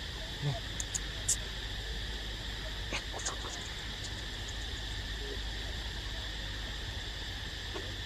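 Steady drone of insects in the trees, with a few short clicks and taps in the first few seconds.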